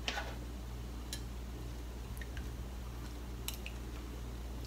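Someone eating soft gelatin jelly with a spoon from a small glass cup: a few faint clicks of the spoon and mouth over a steady low room hum.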